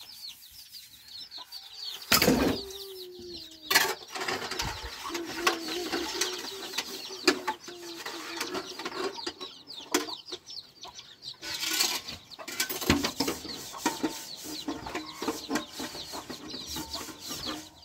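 Chickens clucking, with many short high chirps throughout. Scattered knocks and clatter come in between, the loudest about two seconds in and just before four seconds.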